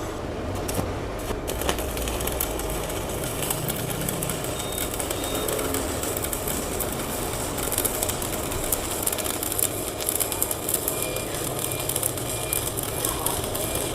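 Stick-welding arc from a 3.2 mm electrode on thick steel plate at about 230 A, crackling and sputtering steadily. The arc strikes within the first second and then burns in one continuous run without breaking off or sticking.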